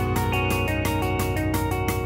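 Background music with held notes over a quick, steady beat.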